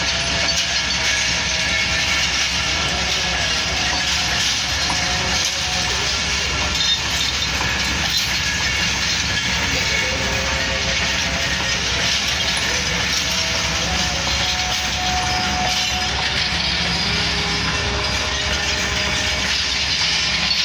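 Passenger coaches of a Pakistan Railways train rolling past on the tracks: a steady noise of wheels on rail with a clickety-clack over the joints, and faint thin tones coming and going.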